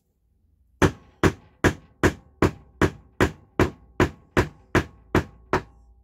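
Hammer tapping a glued wooden dowel down into a hole in a chair leg to seat it for a tight fit: a steady run of about a dozen taps, roughly two and a half a second, starting about a second in.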